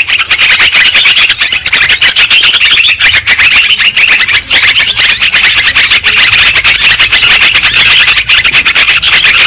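Loud, unbroken chattering chorus of many yellow-vented bulbuls (trucuk), rapid bubbly chirps overlapping without pause. It is a recorded lure call of the kind used to draw the birds into traps.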